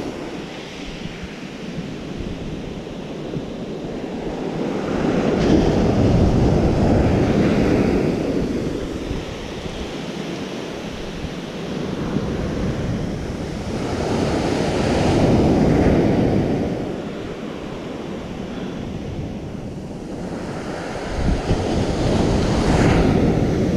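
Ocean surf breaking and washing up the shore, swelling three times as successive waves come in.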